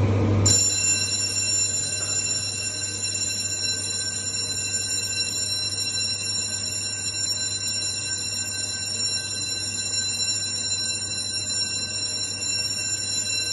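Fire alarm sounding with a steady, ringing high tone, starting abruptly about half a second in: the alarm has been set off by test smoke puffed at a detector.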